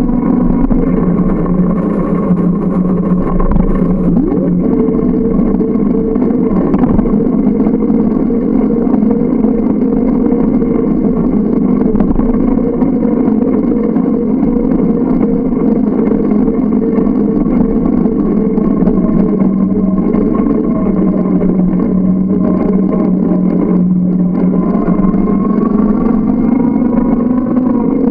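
A motor running steadily at a near-constant pitch, dipping slightly lower for a few seconds past the middle and then recovering.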